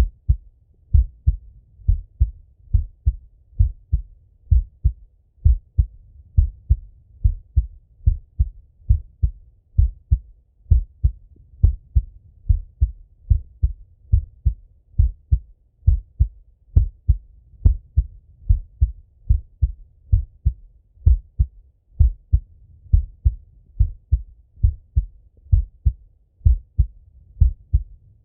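A man's own heartbeat heard through a Littmann stethoscope: steady paired lub-dub beats, about one a second, as deep thuds.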